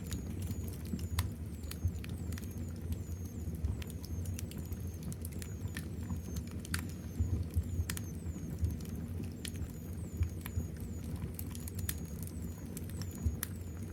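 Wood fire burning in a fireplace: a steady low rumble of flames with frequent sharp crackles and pops. A faint high squeak, falling in pitch, repeats over and over above it.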